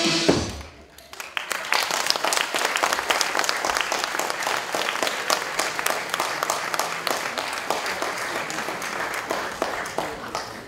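Posing music cuts off at the very start, then an audience applauds, starting about a second in and fading away near the end.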